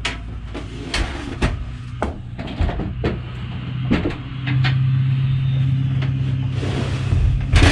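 Werner aluminum attic ladder in its wooden frame being shifted and slid into the ceiling opening: a series of knocks and clunks, then a steady low hum lasting about three seconds, ending in a loud clatter.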